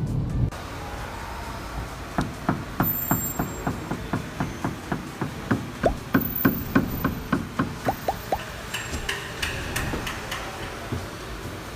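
Hyundai HB20 steering box (steering rack) knocking: a run of sharp knocks, about four a second, lasting several seconds. The noise comes from a failed sealing retainer in the steering box that has let moisture in and rusted it.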